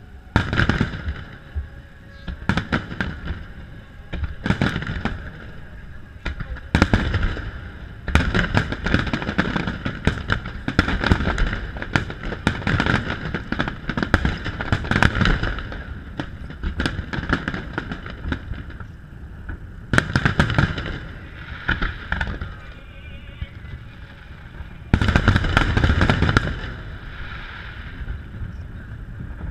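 Aerial fireworks shells bursting: repeated sharp bangs with crackle, a dense barrage through the middle and a last heavy volley near the end.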